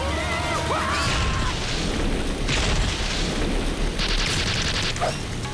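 Cartoon sound effects: a low, rumbling boom runs under bursts of hissing gas spray, with a short squeaky, gliding character voice in the first second or so.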